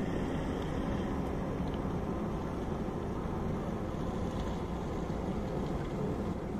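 Steady outdoor background noise, a low rumble with no distinct events.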